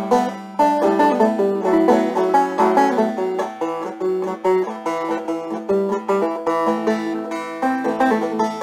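Solo banjo playing an instrumental break, a steady run of quick plucked notes with no voice.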